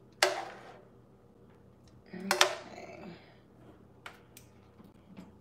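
Metal kitchen tongs clinking against a skillet and a stock pot: a sharp clink just after the start, a louder ringing clatter about two seconds in, then a few light taps.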